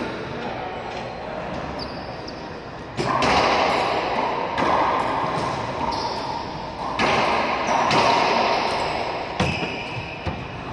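Racquetball rally in an enclosed court: a handful of sharp smacks of racquet on ball and ball off the walls and floor, each ringing on with a long echo off the bare walls.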